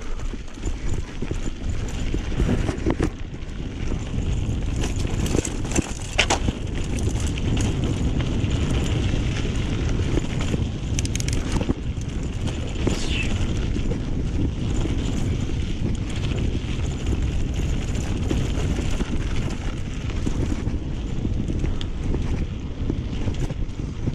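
Wind buffeting the microphone while a mountain bike is ridden over a rough dirt trail, with scattered sharp clicks and knocks from the bike over bumps.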